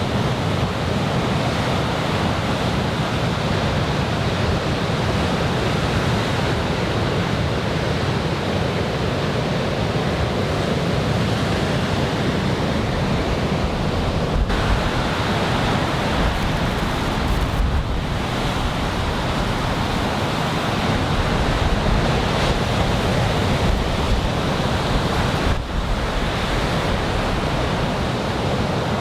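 Ocean surf breaking and washing onto the beach in a large typhoon swell, a steady rushing noise, with wind rumbling on the microphone.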